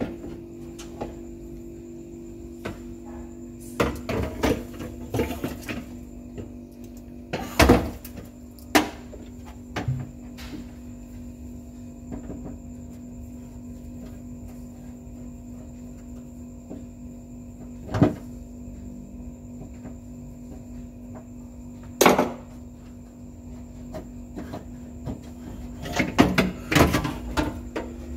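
Scattered knocks and short bursts of clatter from hard objects being handled and set down, over a steady hum. The loudest knocks come near 8 seconds, 18 seconds and 22 seconds in, with a run of rattling clatter near the end.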